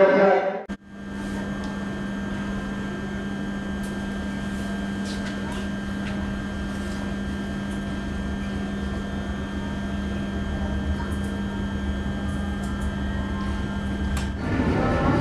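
Steady hum inside an air-conditioned passenger train coach as the train pulls out of a station: a constant low tone from the air conditioning over a low rumble of the moving train, with a few faint clicks.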